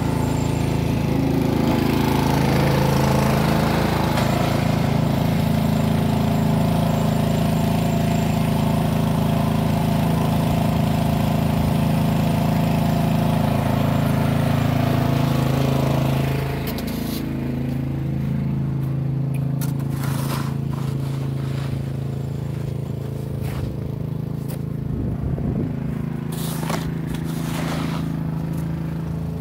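An engine running steadily, loudest for the first half and a little quieter after about the middle. In the later part, a snow shovel scrapes and pushes snow several times.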